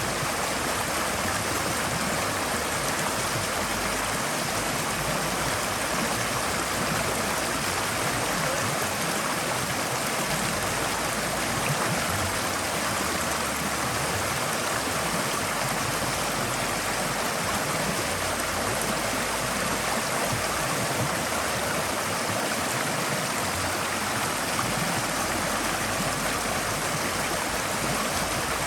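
Forest stream flowing, a steady rush of water over stones with close gurgling and splashing.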